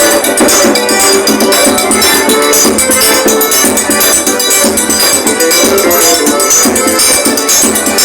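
Forró music played by a trio, with a busy, even percussion beat.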